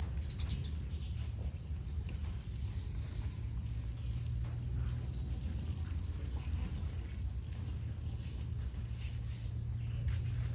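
A bird chirping over and over, short high calls about three a second, over a steady low rumble.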